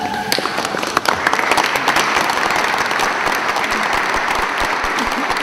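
Audience applauding. The clapping starts just after the beginning, thickens about a second in and then holds steady.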